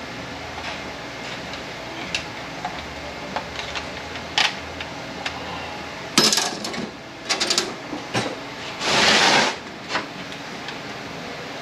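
Workbench teardown sounds from a 6HP26 automatic transmission: scattered light clicks and knocks of tools and parts, then a heavy clunk about six seconds in as the aluminium case is stood on end, and a quick run of rattling clicks. Near nine seconds in a pneumatic tool on an air hose runs in one hissing burst of a bit over half a second.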